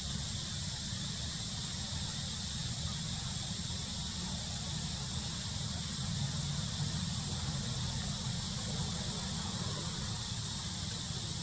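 Steady outdoor background noise: a low rumble under a high, even hiss with a faint steady whine, and no distinct calls or events.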